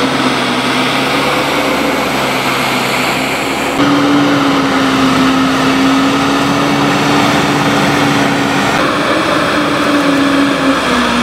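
Tractor engine running steadily with a constant hum, the sound shifting abruptly about four and nine seconds in.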